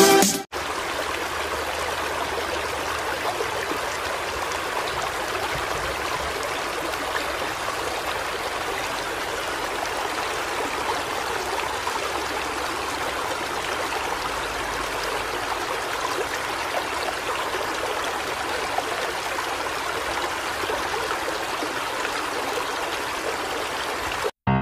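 Steady rushing and splashing of river water churned by many leaping fish.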